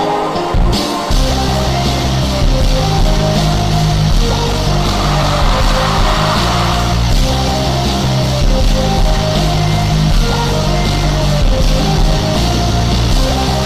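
Loud rock music, in the vein of heavy metal; the bass comes in about a second in.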